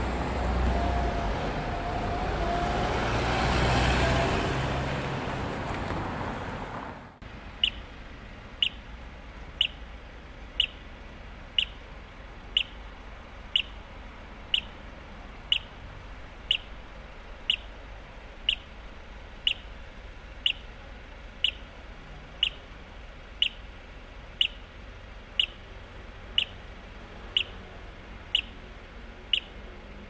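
City road traffic with a vehicle passing close by, loudest about four seconds in. About seven seconds in it cuts to a quieter street background with a short high-pitched tone repeating about once a second.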